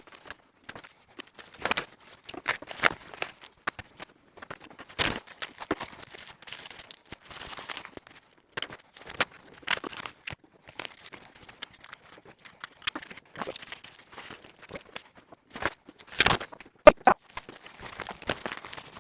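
Mail packaging being handled and opened: envelopes and small plastic bags crinkling and tearing in quick, irregular rustles, with sharp clicks and taps, the loudest about 17 seconds in.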